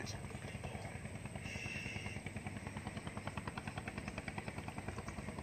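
Small boat engine running steadily with a rapid, even putter.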